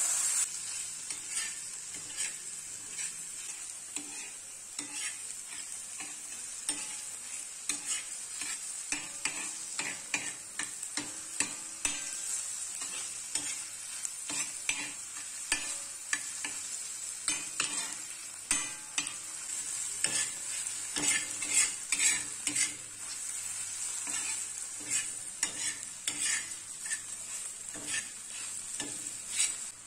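Chopped onions and tomatoes sizzling in oil on a flat tawa griddle, with a metal spatula scraping and tapping the pan as they are stirred. The strokes come thick and fast throughout and are loudest about two thirds of the way in.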